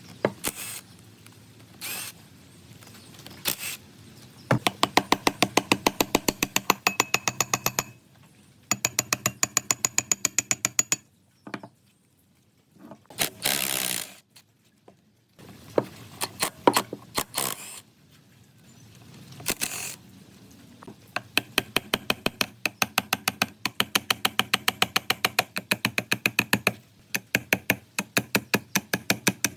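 Runs of rapid, even mechanical clicking, about nine clicks a second, from a tool at work on metal. There is a short hiss about halfway through and occasional single knocks.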